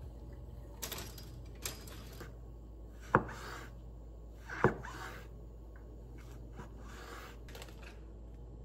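Knife chopping mushrooms on a wooden cutting board: two sharp knocks of the blade on the board about a second and a half apart, with lighter clicks and rustling of food and board around them.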